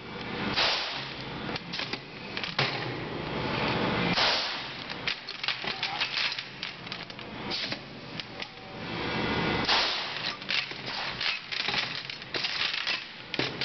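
Pneumatic air-pot tire-chain rebuilding tool cycling, with three long hisses of compressed air as it works, amid rattling and clanking of heavy steel tire chain links against the tool and steel bench.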